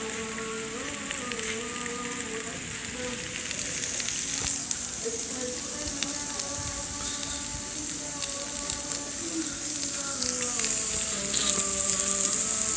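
Meat and prawns sizzling on a tabletop steamboat grill plate, a steady high hiss, with music playing in the background.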